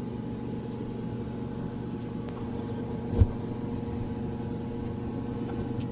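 Steady low machine hum from something running in the room, unchanged throughout, with one short, soft low knock about three seconds in.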